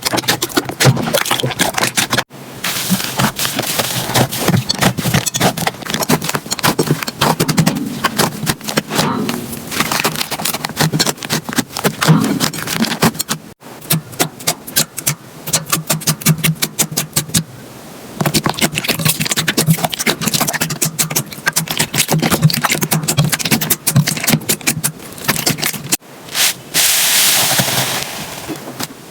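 Slime being squeezed and poked by hand: a dense run of sticky clicks, pops and crackles, breaking off abruptly a few times.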